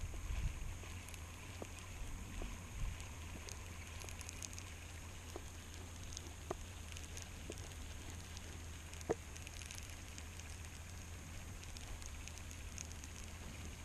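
Quiet open-water ambience from a fishing boat: a steady low wind rumble on the microphone with scattered light ticks and crackles.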